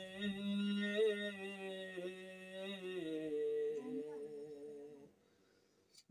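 A man's solo unaccompanied voice singing a devotional Urdu manqabat, drawing out one long held note with slow turns in pitch and stepping down to a lower note about three seconds in. The voice breaks off about five seconds in.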